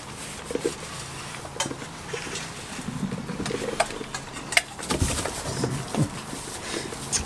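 Scattered clinks and knocks from metal feed bowls and rustling in the straw as goats and a hen feed, with a few sharper knocks around the middle.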